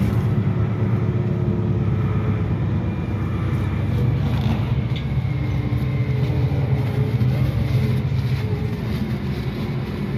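Solaris Urbino 12 III city bus driving along, heard from inside the passenger cabin by the door: a steady low engine hum with road noise.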